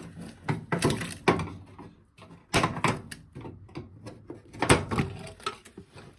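Plastic plinth panel at the foot of a Hotpoint washing machine being pulled off: several sharp knocks and clunks in small groups.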